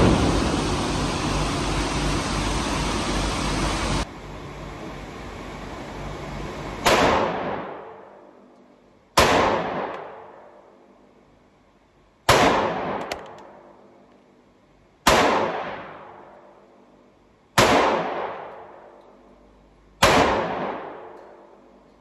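Six gunshots fired one at a time, about two and a half seconds apart, each followed by a long ringing echo in an indoor shooting range. A steady loud noise is heard before the shooting and cuts off abruptly about four seconds in.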